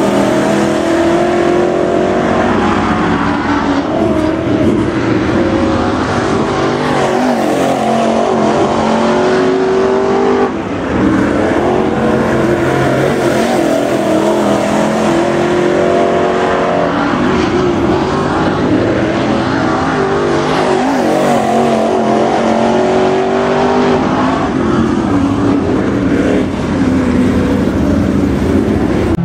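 Dirt late model race cars lapping a dirt oval, their V8 engines rising in pitch down the straights and falling off as they lift for the turns, over and over every few seconds.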